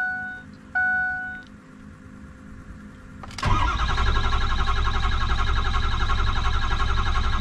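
Two short electronic chimes, then the starter cranks the 6.0 Power Stroke V8 diesel at a steady, fast beat for about four seconds without it catching: a no-start, here with the ICP sensor unplugged.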